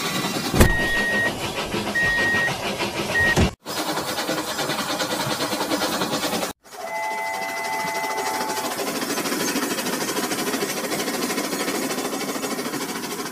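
Battery-powered toy train's small electric motor running, with a steady fast rattle of its wheels on the plastic track. Short electronic beeps sound in the first few seconds, and a longer electronic tone sounds about seven seconds in. The sound cuts out briefly twice.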